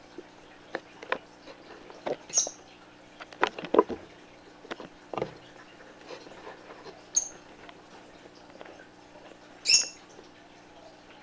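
Pet budgerigars making scattered short clicks and a few sharp, high chirps, the clearest chirps about two, seven and ten seconds in, the last one the loudest.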